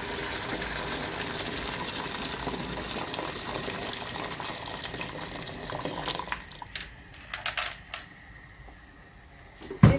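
Water poured from a jug into a large stainless steel pot of boiling beans, a steady splashing pour that stops about six and a half seconds in. A few light clicks follow, then a single loud thump near the end.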